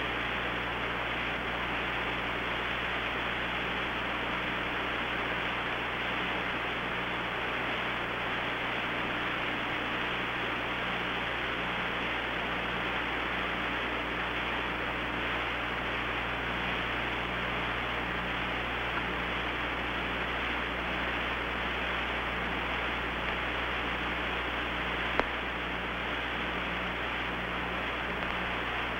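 Steady radio hiss on the Apollo 11 air-to-ground communications link, with a low hum and a faint tone pulsing on and off underneath. A single sharp click comes near the end.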